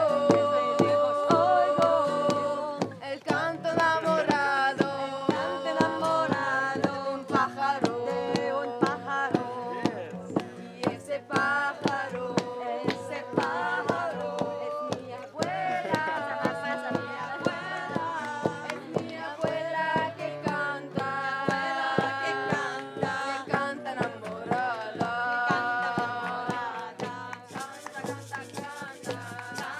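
A group of men and women singing together in long held notes over a steady beat of frame drums struck with mallets, with an acoustic guitar played along.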